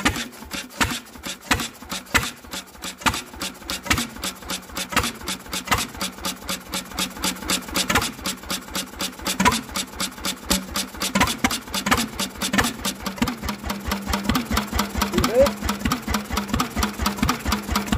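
Single-cylinder Lister B series stationary engine catching on petrol with part choke, firing in a steady beat of exhaust pulses that starts slow and quickens as it comes up to speed and settles into running.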